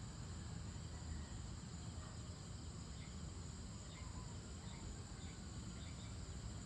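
Dusk outdoor ambience: steady high chirring of crickets over a low, even rumble, with a few faint short chirps about halfway through.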